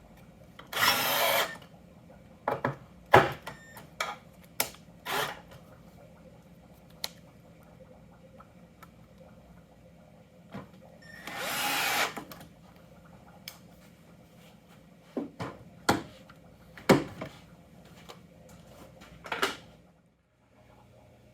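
Power drill driving screws into wood in two short runs of about a second each, about a second in and again near the middle, with scattered sharp knocks and clicks between them.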